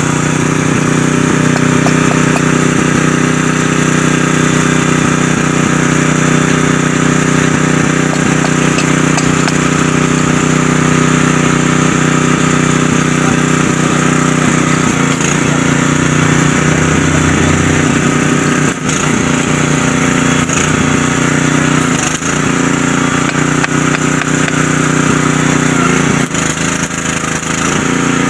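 Engine-driven welding generator (welding plant) running steadily at a constant speed while stick-welding a steel pipe.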